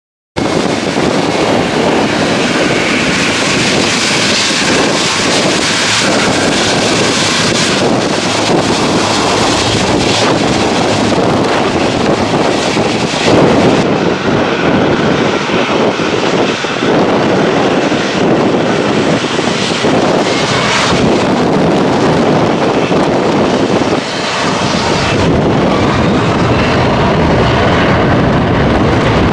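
Boeing 757-300 jet airliner's engines at takeoff power: a loud, steady engine noise that holds throughout.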